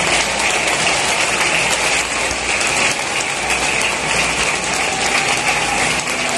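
A large stadium crowd applauding steadily, the dense even crackle of thousands of hands clapping.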